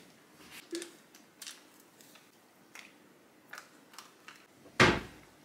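A spoon tapping and scraping as wet cat food is dished onto a plate on a tiled floor: scattered light clicks, then a single loud thump near the end.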